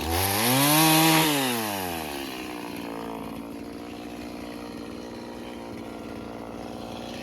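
Stihl MS 170 two-stroke chainsaw revving up briefly, then falling back over about a second to a steady idle.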